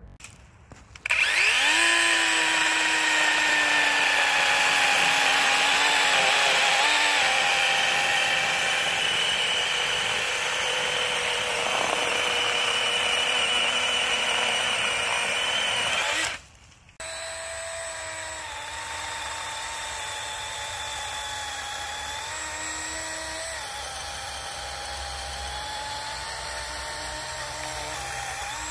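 DeWalt 20 V cordless 12-inch chainsaw's electric motor whining steadily as it saws through a log, its pitch dipping as the chain bites. After a short break about halfway through it runs again, quieter, cutting into a standing tree.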